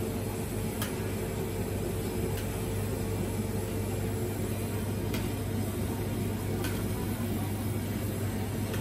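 Gas wok burner running steadily under a large wok of chicken frying in oil, with a low hum throughout. A few light clinks of the metal spatula and ladle against the wok.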